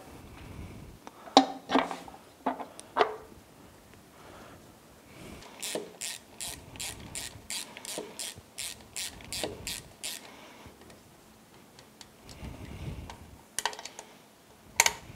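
Hand ratchet wrench clicking in an even run of about three to four clicks a second, tightening the prop shaft housing into a Yamaha F225 outboard's lower unit gearcase. A few metal knocks come before the run and two sharp clanks near the end as the housing is worked in.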